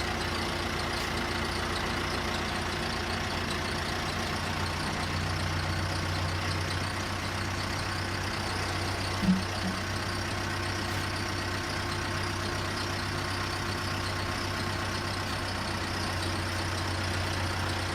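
A vehicle engine running steadily at idle, with one short knock about nine seconds in.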